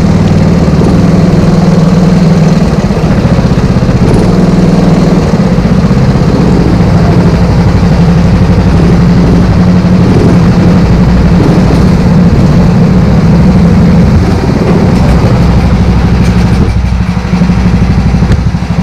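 Go-kart engine running loud and close at low speed, then idling as the kart comes off the track and stops in the pits.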